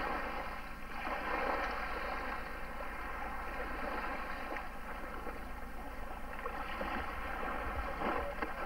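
Steady drone of a distant motorboat engine, the water-ski tow boat, carrying across open water over a hiss of wind and water.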